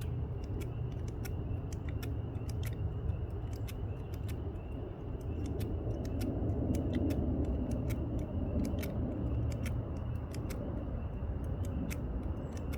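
Lock-picking tools working a Master Lock padlock: a scattering of small, sharp metal clicks and ticks at an uneven pace as the pins are picked, over a steady low rumble.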